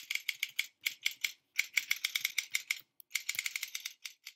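Keyboard typing sound effect: quick key clicks, several a second, in three runs broken by brief pauses.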